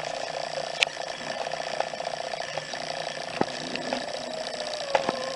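Domestic cat giving a low, continuous rattling threat growl, which turns into a drawn-out yowl near the end. A few sharp clicks sound over it.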